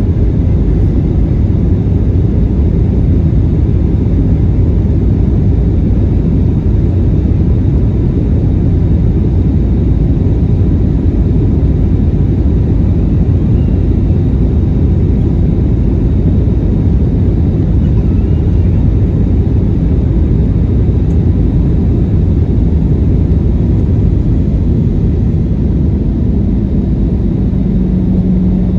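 Steady low rumble of engine and airflow noise inside a Boeing 737-900 airliner's cabin.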